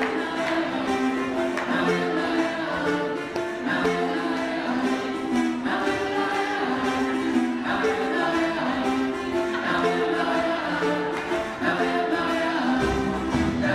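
Zimbabwean-style marimba ensemble playing a repeating interlocking pattern of struck wooden-bar notes, with deeper bass notes coming in near the end.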